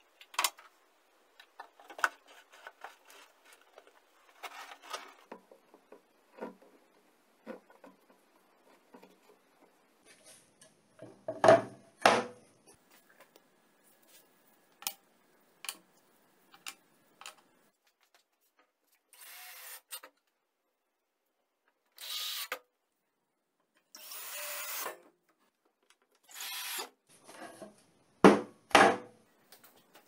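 Intermittent workshop handling sounds: scattered clicks and light knocks, a few short scraping rubs, and two pairs of louder knocks, one about 12 seconds in and one near the end.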